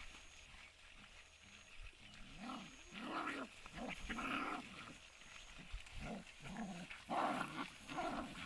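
Two desi puppies fighting, growling and snarling in short, repeated bursts, louder about three seconds in and again near the end.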